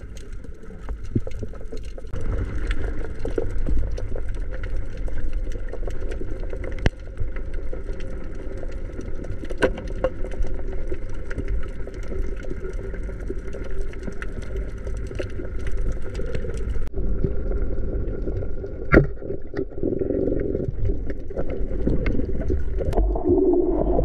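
Underwater sound through a waterproof camera housing: a low, muffled rumble of moving water with many scattered small clicks and one sharper knock about nineteen seconds in.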